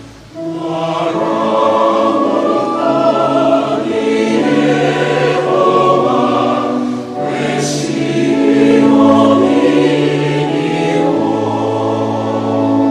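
A choir singing a slow gospel song in long, held notes, entering about half a second in as the preceding music fades.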